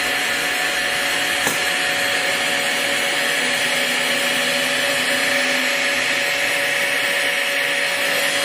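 Monarch 10EE toolroom lathe running steadily on its solid-state inverter variable speed drive: a smooth, even machine hum and whine holding several steady tones, with a faint click about a second and a half in.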